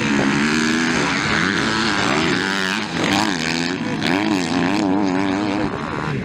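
Motocross bike engines revving, their pitch rising and falling again and again as riders work the throttle through the corners and over the jumps.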